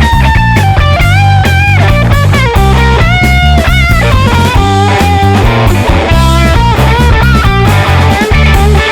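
Background rock music: a lead guitar playing a bending melody over bass and drums.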